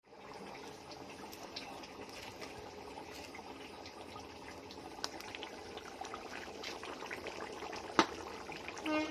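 A pot of chicken curry boiling over a wood fire: a steady bubbling hiss with scattered pops and crackles, and one sharp crack about eight seconds in.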